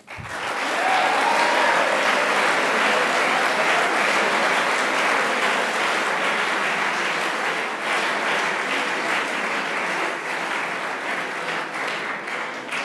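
Audience applauding, starting abruptly and holding steady for about twelve seconds before dying away near the end.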